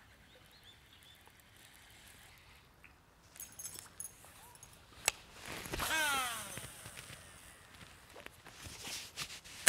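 A fishing reel's spool whirring on a cast, a whine that falls in pitch over about a second as the spool slows. A sharp click comes just before it, and faint clicks and rustles of handling the rod and reel come near the end.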